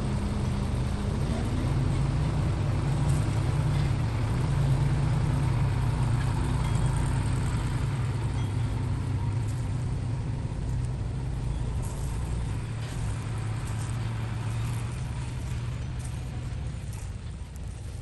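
Loaded light dump truck's engine running as it drives off, a steady low hum that grows a little louder a few seconds in and fades toward the end.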